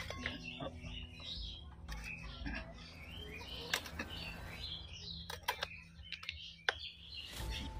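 Small birds chirping continually, with a sharp chop of a blade through a chicken leg onto a wooden block at the start and several more sharp knocks scattered through.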